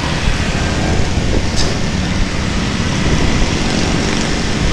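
V-twin motorcycle engines running at low speed: the rider's Keeway V250 and a Harley-Davidson touring bike just ahead, with a steady deep rumble. A brief click sounds about a second and a half in.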